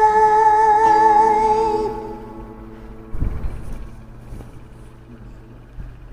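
A woman's singing voice holds a long note with vibrato over the karaoke backing track, ending about two seconds in as the song closes. A low thump follows about a second later, over faint steady background noise.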